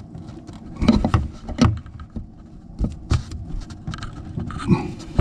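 Irregular clicks and knocks of a wrench's metal jaws against the tap's fixing nut under the sink, as the tool is fitted and worked around the nut.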